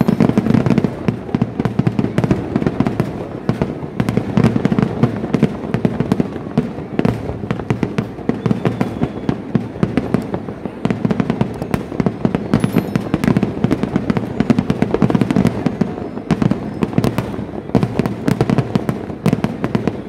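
Kerala vedikkettu fireworks going off in a dense, unbroken barrage of bangs and crackles, many a second, with no pause.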